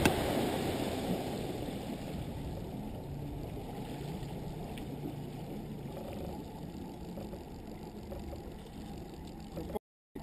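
Bass boat under way on its outboard motor: a low, muffled engine drone mixed with rushing wind and water noise, easing down in level over the first couple of seconds and then holding steady. The sound drops out to silence for a moment near the end.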